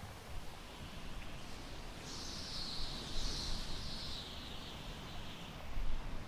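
Wind blowing through tall grass: a low rumble of wind on the microphone, with a hissing rustle of the grass that swells about two seconds in and fades over the next three seconds.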